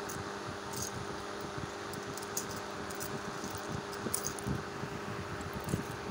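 Steady mechanical hum, like a running fan, with a few small scattered clicks of metal rings knocking together as a hand moves over them, a little cluster of them about four seconds in.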